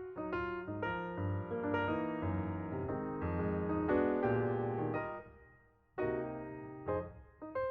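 Background piano music, a run of notes that breaks off briefly about six seconds in and then resumes.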